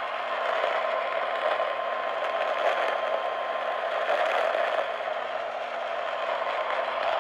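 Steady radio static: an even, narrow-band hiss from a weather radio receiver with no voice on it. A faint steady tone sits under the hiss for the first four seconds or so.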